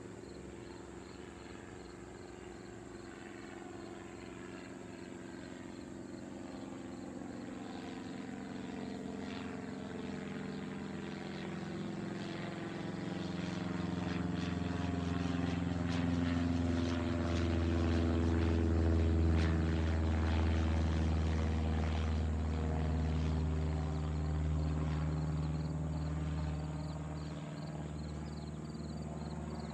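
Cessna 152 light plane flying overhead, its four-cylinder Lycoming O-235 engine and propeller growing louder to a peak about two-thirds of the way through. The pitch drops as it passes, then the sound fades.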